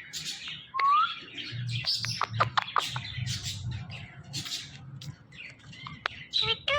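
Ringneck parakeet chirping and making short scratchy calls, with a brief rising whistle about a second in.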